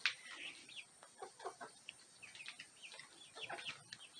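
Young Marans chickens, still partly in chick fuzz, peeping and cheeping softly: a scattered string of short calls that fall in pitch. A light knock right at the start.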